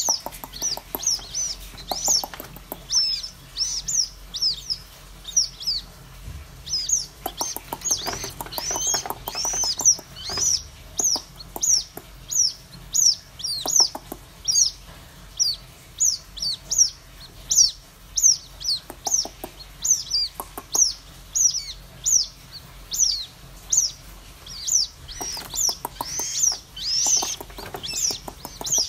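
White-breasted waterhen chicks peeping continuously: short, high chirps that fall in pitch, about two a second, with a few scattered taps or clicks.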